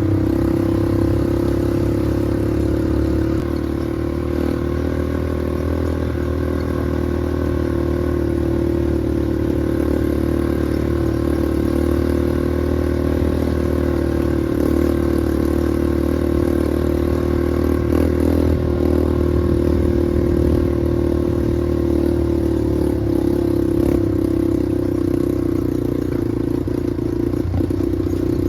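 Small off-road vehicle engine running steadily at a near-constant speed, a continuous loud drone with little change in pitch.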